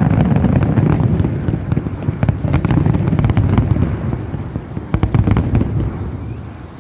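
Large fireworks display: many aerial shell bursts with crackle, overlapping into a continuous rumble, dying down over the last couple of seconds.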